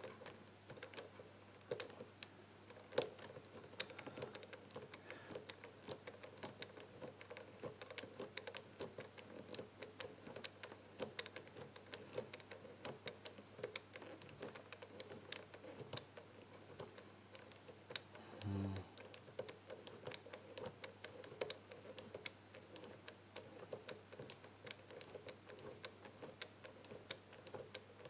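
Number wheel of an ABUS Tresor combination bike lock being turned digit by digit, giving a run of small, irregular clicks as it detents past each number while being felt for binding on the false and true gates. A brief low hum is heard about two-thirds through.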